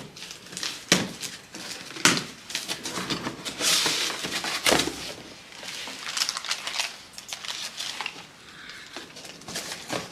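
Packing tape being torn by hand off a cardboard box, then the cardboard flaps pulled open, with irregular crackling, rustling and scraping of cardboard and several sharper rips.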